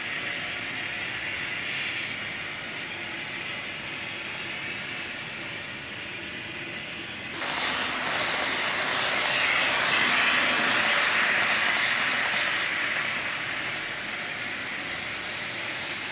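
Running sound of a Tenshodo HO-scale 500 Series Shinkansen model, its ESU LokSound decoder playing train running noise over the model's wheels on the track: a steady rushing noise. About seven seconds in it turns suddenly louder and brighter, then eases off near the end.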